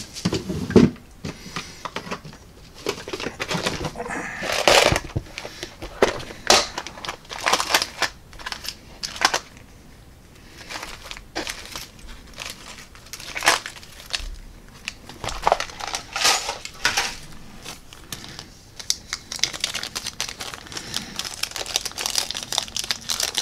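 Rummaging through a clear plastic parts box: irregular clicks, taps and crinkling of plastic.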